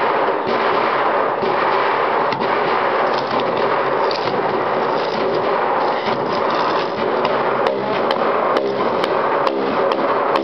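Fast, continuous drumming on water-covered barrel drums, with water splashing under the strokes. Near the end sharper separate clicks come in, then struck plastic tubes giving short pitched notes in a regular rhythm.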